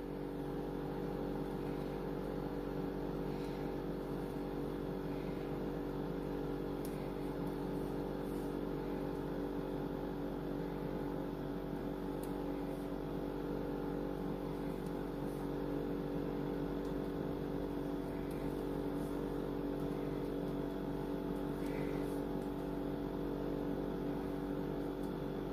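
A steady machine hum made of several fixed tones, like an appliance motor running, with a few faint light ticks now and then.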